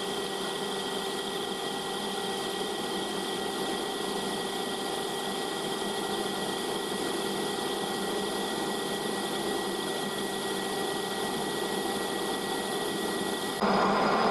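Metal lathe running steadily, a high-speed steel tool turning aluminium bar stock, with a constant hum and whine. Near the end the sound jumps abruptly to a louder, fuller machine noise.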